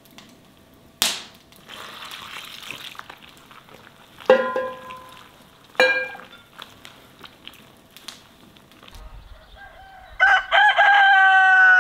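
A rooster crows near the end: a couple of short starts, then one long call that drops off at the finish. Before it come a sharp click about a second in and two short ringing knocks a second and a half apart.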